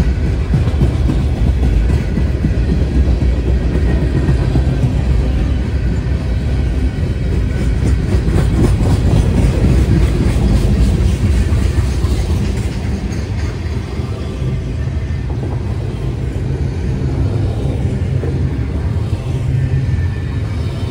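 Freight train cars rolling past: a steady rumble of steel wheels on rail with a quick run of clicks as the wheels cross rail joints. Boxcars give way to tank cars and then container cars.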